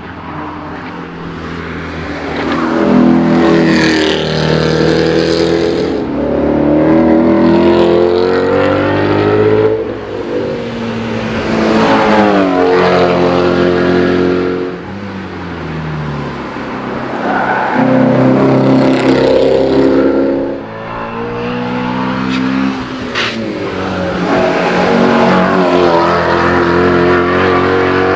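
Prototype Ford Mustang Shelby GT350's 5.2-litre flat-plane-crank V8 revving hard as the car accelerates past. Its pitch climbs in repeated pulls, each falling away at a gear change, several times over.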